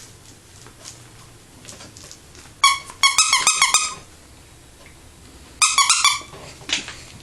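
Squeaker in a repaired plush hedgehog dog toy squeaking in short, high squeaks: one alone, then a quick run of about six, then another cluster near the end, as the toy is squeezed or chomped.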